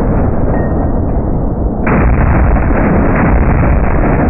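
Gunfire from an AR-15 short-barrelled rifle, slowed down with 240 fps slow-motion footage into a continuous deep, dull rumble with no crisp cracks. A fresh, sharper onset comes about two seconds in.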